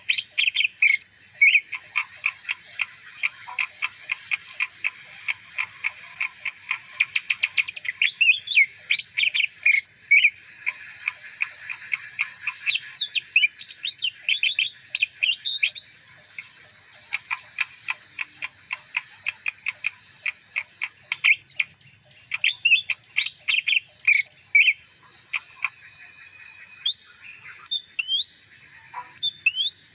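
Leafbird singing a long, fast, varied song of chirps, rapid trills and short whistled slurs, pausing briefly now and then.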